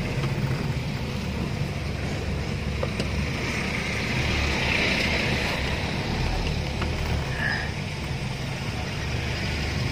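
Car cabin noise while driving slowly: a steady low engine hum under the hiss of tyres on a wet road, the hiss swelling about halfway through.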